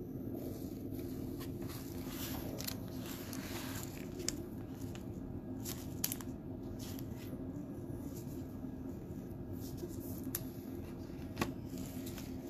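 Quiet steady room hum with a few faint, light clicks scattered through it.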